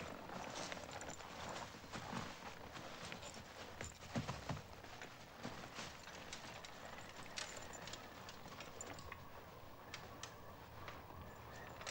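Footsteps of a group of people walking and shuffling through snow, many short, irregular steps and scuffs overlapping.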